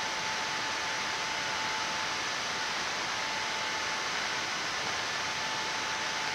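Steady hiss of background noise on a Boeing 787 flight deck as the airliner rolls slowly onto its parking stand, with a faint steady high tone that fades out near the end.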